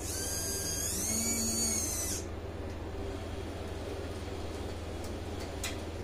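Small electric servo motor of a radio-controlled model forklift whining as it raises the forks with a pallet, rising in pitch about a second in and stopping after about two seconds. A low steady hum continues underneath, with a couple of faint clicks near the end.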